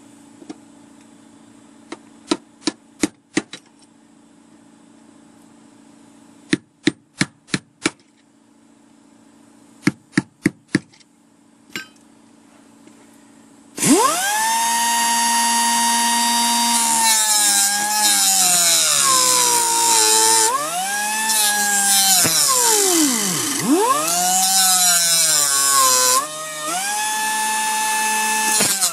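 Hammer blows on the van's sheet-metal floor in short runs of four or five quick strikes. About fourteen seconds in, a small cut-off grinder starts with a high whine and cuts into the floor around the seat-bolt hole, its pitch dipping and recovering again and again as the wheel is loaded against the metal.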